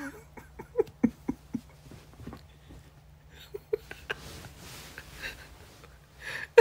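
A man laughing helplessly: a quick string of short, breathless bursts, then wheezy, breathy laughter about four seconds in.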